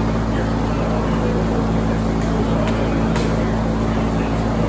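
A steady low mechanical hum fills the gym, with a few sharp slaps of strikes landing on pads and mitts about two to three seconds in, and voices murmuring underneath.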